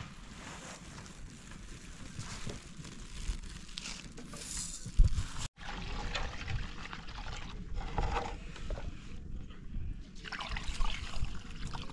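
Water pouring and trickling from a metal pot into a plastic basin as rice is rinsed, with handling clatter and a sharp knock about five seconds in.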